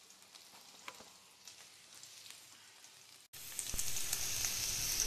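Faint, nearly quiet room sound for about three seconds, then a sudden jump to potato and drumstick pieces sizzling in oil in a pan, with a few knocks of a metal spatula stirring them.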